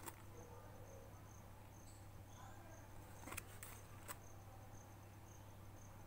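Near silence with a low hum and a faint, broken high-pitched tone, and a few short paper flicks of book pages being turned, about three to four seconds in.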